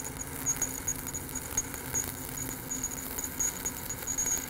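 Shielded metal arc (stick) welding with a 7018 electrode: the arc crackles and sizzles steadily while laying a vertical-uphill cap bead on steel plate.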